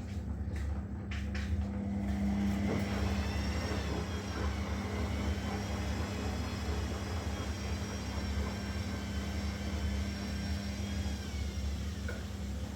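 Washing machine motor turning the drum: a whine that rises about two seconds in, holds steady, then drops away near the end, over a steady low hum.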